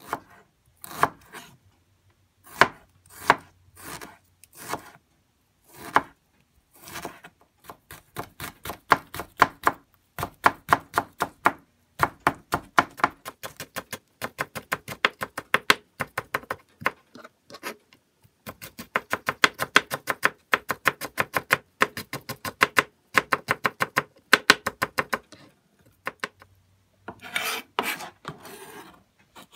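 Chef's knife slicing food on a cutting board: a few slower cuts at first, then a long, steady run of about three to four quick cuts a second as it shreds thin strips. Near the end there is a short rubbing scrape.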